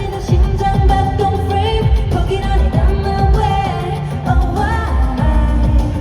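Live K-pop concert performance: pop song with female singing over a heavy bass beat, loud through the arena sound system.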